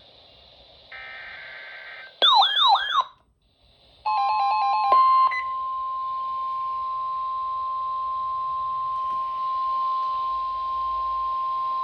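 NOAA Weather Radio emergency alert: a short burst of the buzzing SAME header data tones, a brief loud warbling siren-like sound, then from about four seconds in the steady 1050 Hz warning alarm tone held as one long beep, which signals that a warning is about to be read.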